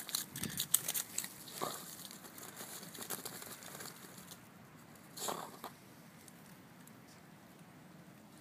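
A dog biting and crunching into chunks of a squash, with crisp cracks and crunches packed into the first three seconds and another short burst about five seconds in, then quiet.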